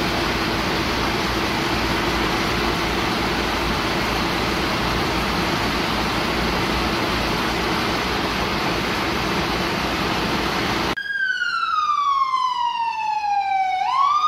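Fire engine's siren sounding a wail about eleven seconds in, sliding down in pitch over about three seconds and then sweeping back up. Before it, a steady broad noise with a low hum.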